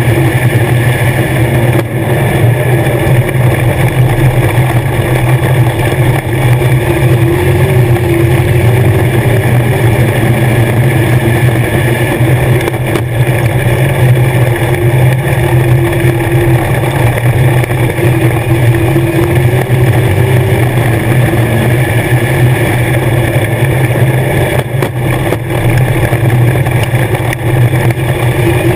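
Race car engine heard from inside the cockpit at racing speed: a loud, continuous drone whose pitch rises and falls slightly as the throttle changes.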